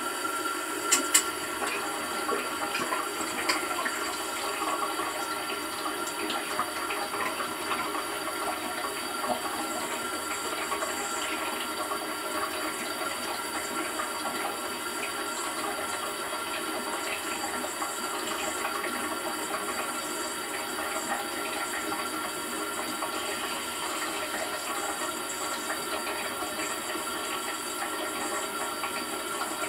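Dishwasher running, with a steady rush of water inside it. There are two sharp clicks about a second in.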